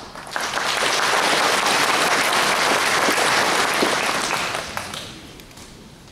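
An audience applauding. The clapping swells up quickly, holds for about four seconds, then dies away.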